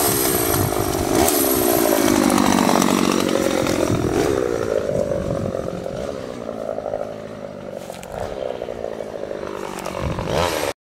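Chainsaw running and cutting into hedge branches, its engine pitch dropping under load and climbing again as the cut eases. It cuts off suddenly near the end.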